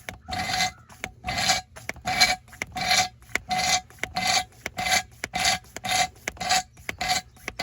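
Hand-operated oil pump being worked in steady strokes, about two a second, pumping gear oil back into the skid steer's hydrostatic planetary gear case. Each stroke is a short scraping squeak.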